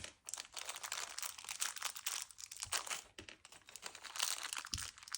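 Crinkling of plastic packaging with small clicks, as a servo and its small plastic parts are handled and taken out.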